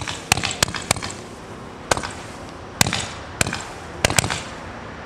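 Consumer aerial firework barrage firing: about eight sharp, irregularly spaced reports with short echoes, the last two close together about four seconds in.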